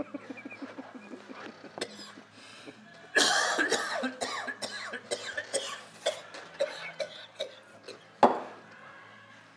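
A man coughing and spluttering after spraying aerosol de-icer into his face. There is a loud fit of coughs about three seconds in, smaller coughs after it, and one sharp cough near the end.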